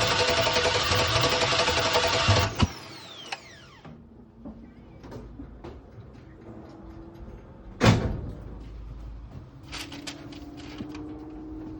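GM LM7 5.3-litre V8 being cranked by its starter without firing, a steady whine with slow, even pulses. The cranking stops about two and a half seconds in and the starter's whine falls away. After that come scattered light clicks and one sharp knock about eight seconds in.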